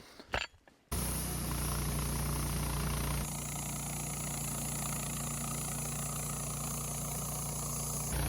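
Engine of a Wood-Mizer portable band sawmill running steadily. It starts abruptly about a second in, and its sound changes suddenly at about three seconds and again near the end.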